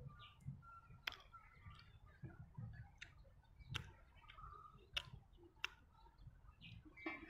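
Faint close-up chewing with about half a dozen sharp, wet mouth clicks and smacks, spaced irregularly, as a mouthful of steamed bun is eaten.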